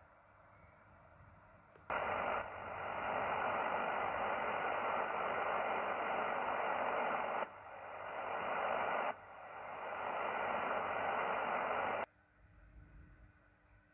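Yaesu FTDX10 receiver hiss on 20 m SSB with the AMP1 preamp on: faint self-noise of the receiver with no antenna, then about two seconds in a loud, even band-noise hiss from the connected antenna fills in, cut off above about 3 kHz by the SSB filter. The hiss drops away suddenly twice and climbs back each time, then cuts off near the end, leaving only faint hiss.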